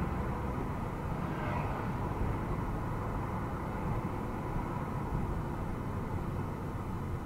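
Steady engine and road noise inside a moving car, heard through the dash cam's built-in microphone.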